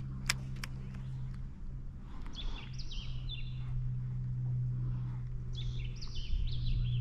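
Birds in the mangroves calling in two short runs of falling notes, over a steady low hum. There are two sharp clicks near the start.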